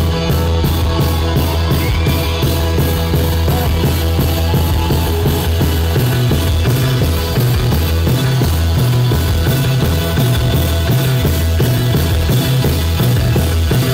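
Live rock music from a post-punk band on stage: drums and electric guitar over a heavy, steady bass line. About six seconds in, the bass changes to a pulsing pattern.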